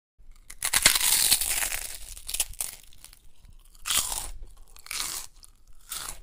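Close-up eating sounds of crab shells being cracked and crunched while chewing: a long run of crunches, then three shorter bursts.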